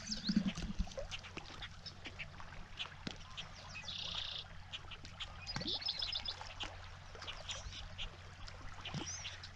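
Birds calling in short, high chirps that come in a few quick clusters, over a faint steady hum and scattered small clicks.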